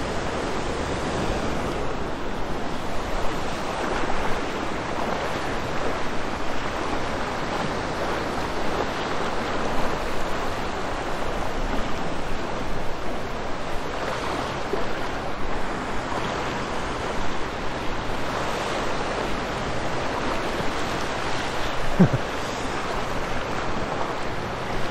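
Small surf waves washing and breaking in shallow water, with water sloshing close to the microphone. Near the end, a brief squeak drops sharply in pitch.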